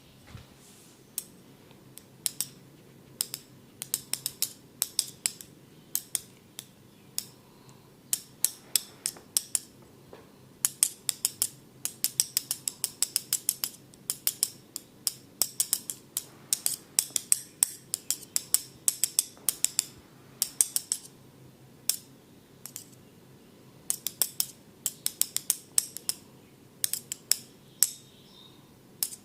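Close-up clicking of a barber's small hand implements: bursts of quick, sharp clicks, a few to a dozen at a time, with short pauses between.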